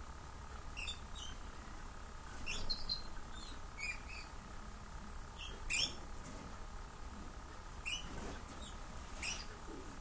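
Small songbirds chirping: brief high calls scattered irregularly, the loudest about six seconds in, over a faint steady low hum.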